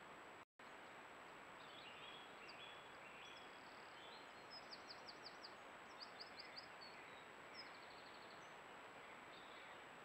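Faint songbird singing over the steady hiss and thin high electronic whine of a trail camera's microphone: short chirps, then several quick rattling trills between about 4 and 8 seconds in. The sound drops out completely for an instant about half a second in, where the recording cuts between clips.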